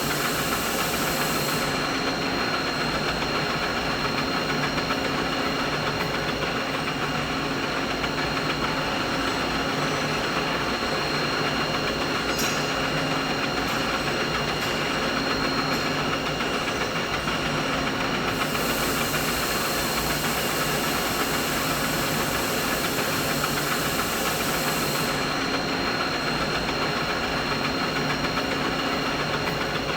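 Continuous machinery noise: a steady mechanical hum and hiss with a constant high whine running through it. The highest hiss drops away about two seconds in, comes back around eighteen seconds, and drops away again at about twenty-five.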